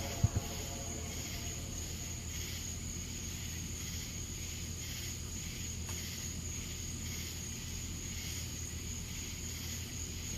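Night insects chirping in a steady pulsing rhythm, just under two pulses a second, over a steady high whine and a low hum. Two short thumps right at the start.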